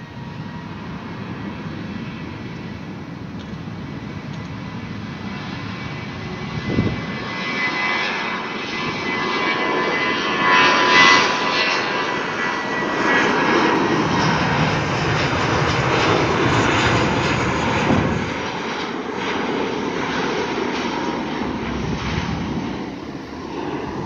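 Twin-engine jet airliner at takeoff power on its takeoff roll: the jet engines' rumble, with a high steady whine over it in the first half, grows louder over about ten seconds and then eases a little near the end as the plane lifts off.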